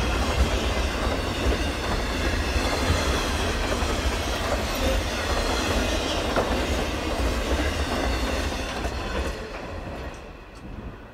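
Double-stack container cars of a freight train rolling past, a steady rush of wheels on rail with clacking; the last car passes about nine seconds in and the noise falls away.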